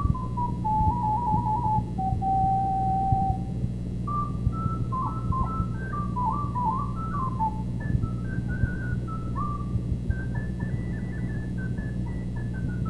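A solo recorder plays a melody: a falling run into a held note, then quick ornamented figures that climb higher near the end. A steady low hum runs beneath.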